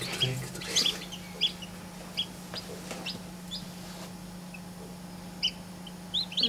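Newly hatched domestic chicken chick peeping: short, scattered high peeps, each rising and falling in pitch, with a lull in the middle and a few more near the end. A steady low hum runs underneath.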